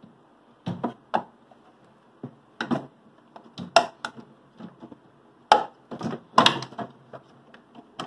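Irregular plastic clicks and knocks as a refrigerator's thermostat housing is pressed off its locking clip and worked loose from its bracket by hand.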